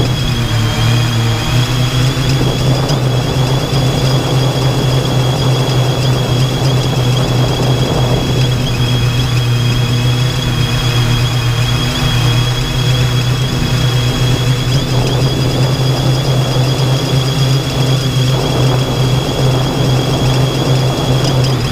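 3DR X8+ octocopter's electric motors and propellers running steadily in flight, heard close up from its onboard camera: a strong low hum with a steady high whine above it.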